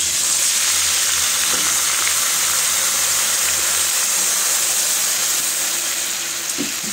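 Water poured into hot oil with fried spices in a kadhai, sizzling loudly and steadily, easing a little toward the end.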